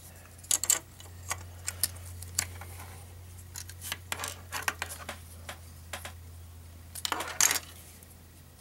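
Small plastic model-kit parts clicking and clacking as they are handled, pulled apart and snapped together: scattered short clicks, with quick flurries near the start and again about seven seconds in. A steady low electrical hum runs underneath.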